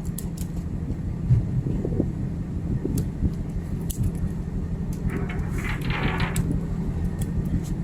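Steady low hum of a ship's machinery, with scattered light knocks and clicks, and a brief hissing rush about five seconds in.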